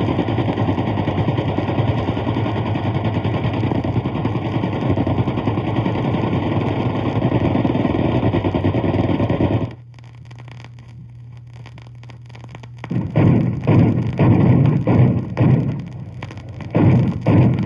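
Machine-gun fire from a 78rpm sound-effects record. Continuous rapid fire stops abruptly partway through, leaving about three seconds of record hum and surface noise. Heavier gunfire then follows in separate short bursts, which is likely the start of the next track's anti-aircraft gun.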